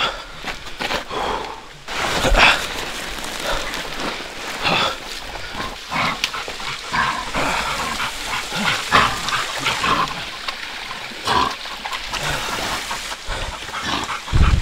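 A wild boar caught by a pig-hunting dog and being grabbed by a hunter, crying out again and again, with the dog's noises and scuffling over mud and scrub mixed in.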